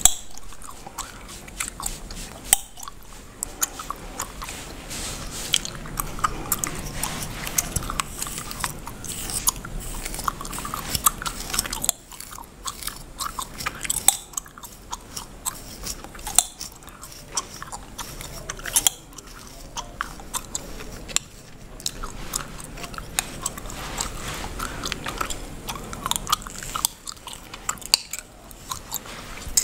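Bubblegum chewed and cracked close to the microphone: many sharp, irregular snaps, several a second, mixed with the soft scratching of fingers and a tool working through oiled hair on the scalp.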